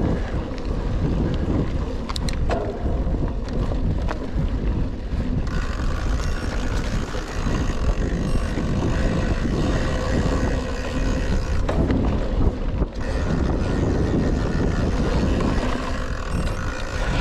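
Rockrider XC 900 mountain bike ridden over a forest trail: a steady rush of wind buffeting the action-camera microphone over tyre noise, with scattered short knocks and rattles from the bike.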